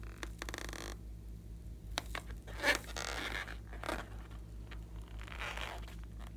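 Hands working sticky slime: scattered small clicks and pops with short scraping, tearing bursts, the loudest about three seconds in.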